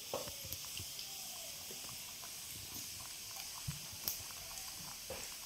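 Hot oil sizzling steadily in a pan as food balls deep-fry, nearly cooked, with a few faint light clicks.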